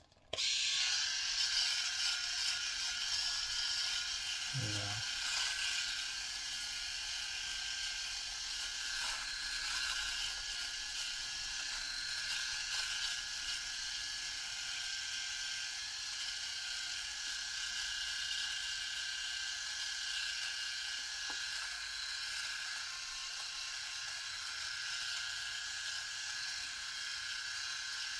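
Sejoy three-head cordless rotary electric shaver switched on at the start, then running steadily as it is worked over dry stubble on the cheek and chin. It is slightly louder for the first few seconds.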